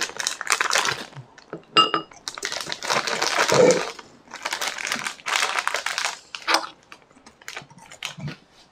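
Plastic snack wrapper crinkling and crackling as it is handled, in short runs with brief pauses, with a short high squeak about two seconds in.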